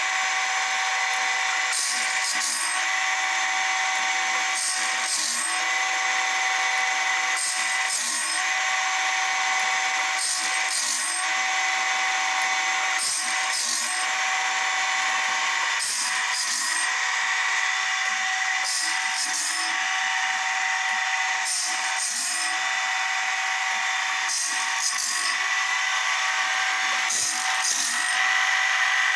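Homemade automatic bandsaw blade sharpener running: a grinding-stone motor hums steadily while the stone sweeps across the teeth of a Wood-Mizer-type sawmill blade, making short high rasps in pairs about every two and a half to three seconds.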